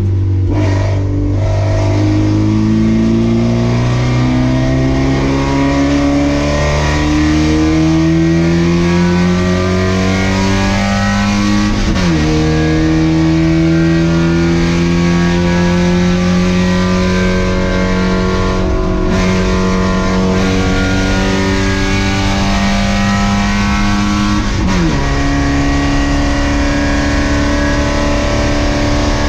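Race car engine heard from inside the car, pulling hard under full throttle with its pitch climbing steadily through each gear. It drops sharply on two upshifts, about 12 seconds in and again near the end.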